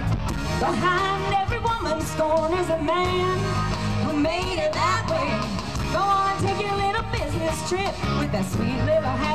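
Rock-style music: sung vocals with vibrato over a band with drums and guitar.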